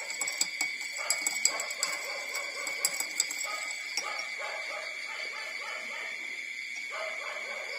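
Newborn puppies, four days old, squeaking and whimpering in short high calls as they nurse from their mother, with sharp clicks over the first few seconds. A steady high-pitched whine runs underneath.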